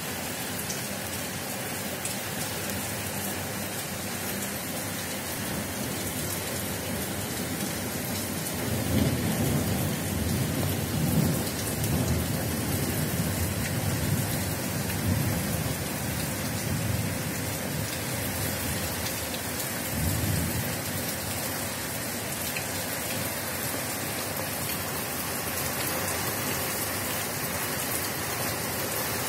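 Heavy rain pouring steadily, a torrential downpour of about 50 litres per square metre. Low thunder rumbles rise over it about a third of the way in for several seconds, and again briefly a little past the middle.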